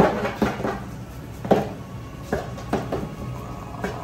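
A wooden rice paddle cutting and turning vinegared sushi rice in a wooden hangiri tub (shari-kiri, mixing the vinegar into the rice). Irregular sharp wooden knocks as the paddle strikes the tub, about seven in four seconds.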